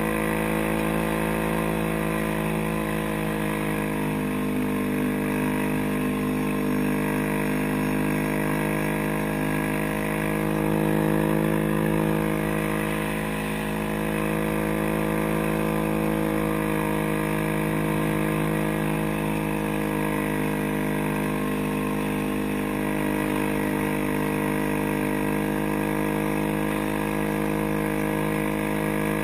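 Tracked ATV's engine running steadily under way, its pitch shifting a little with the throttle. It gets slightly louder about ten seconds in and dips briefly just after.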